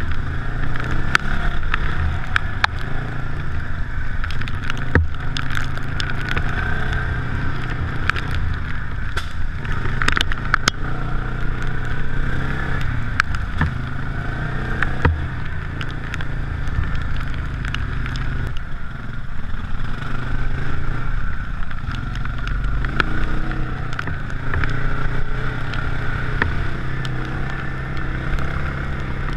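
An off-road quad or side-by-side engine running steadily as it drives, with its hum rising and dipping a little. Scattered sharp ticks sound throughout.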